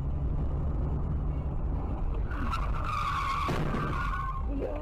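Car tyres screeching in a hard skid for about two seconds, starting near the middle, over the steady road and engine rumble of a moving car; a brief knock sounds partway through the screech.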